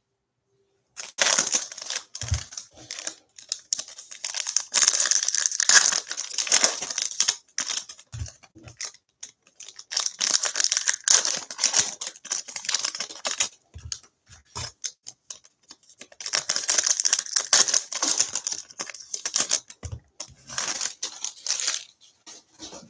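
Foil wrappers of Panini Mosaic basketball card packs being torn open and crinkled by hand, in three long bursts of crinkling with short pauses between, and a few soft thumps.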